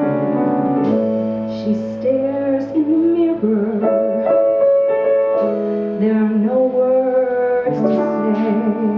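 Women singing a song with piano accompaniment, holding long notes with vibrato.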